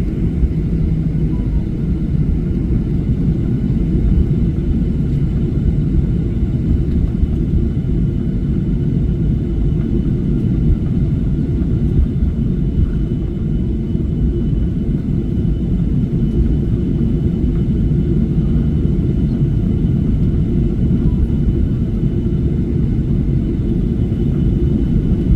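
Steady low rumble inside an airliner cabin: jet engines and airflow running evenly with no change in pitch or level.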